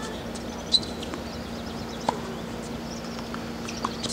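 Outdoor ambience: small birds chirping in short high calls over a steady low hum, with a few sharp taps, the loudest about a second in.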